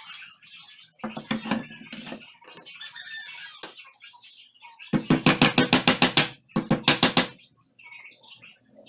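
Quick runs of hammer taps on a plank-wood cabinet door, about eight taps a second, with the wood ringing under them; the two loudest runs come about five to seven seconds in.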